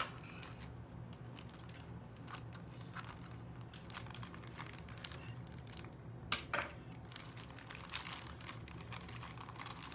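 Clear plastic packaging crinkling and crackling as it is handled, snipped open with scissors and pulled apart, in a scatter of small irregular crackles; the sharpest crackle comes a little past the middle.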